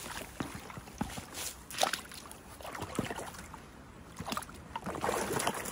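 Legs in rubber-booted chest waders wading through a shallow, iced-over pond. Water sloshes and splashes, with scattered knocks and clinks of broken ice plates and a longer, louder slosh about five seconds in.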